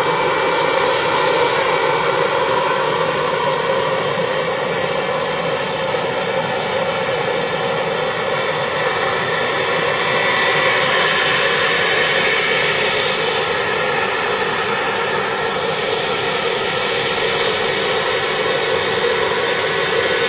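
Jakadofsky Pro model gas turbine of a large RC scale EC-135 helicopter running steadily: a dense jet-like rush with steady whining tones through it, a little louder about halfway through.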